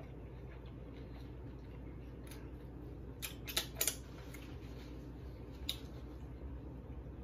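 A few short crisp crackles as a baked-cheese taco shell is broken apart by hand, with a quick cluster of three or four about three seconds in, over a steady low hum.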